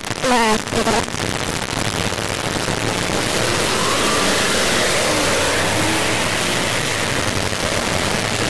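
Loud, steady hiss like static or rushing noise, with a brief warbling, wavering tone in the first second and a few faint gliding tones drifting through it later.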